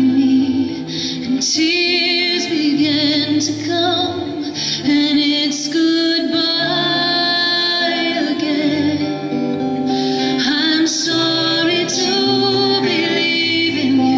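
A woman singing long held notes with vibrato over a strummed acoustic guitar.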